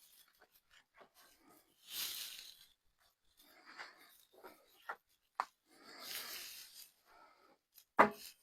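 Light handling sounds at a woodworking bench: scattered small clicks and taps, two short scrapes about two and six seconds in, and one sharp knock near the end.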